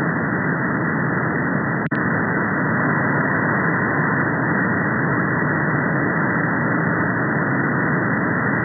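Static hiss from a VHF software-defined radio receiver (Airspy) in upper sideband mode, tuned to empty channels around 38.5 and 40.8 MHz where no radar signal is present. Only steady band-limited noise is heard, with one brief dropout and click about two seconds in where the receiver is retuned.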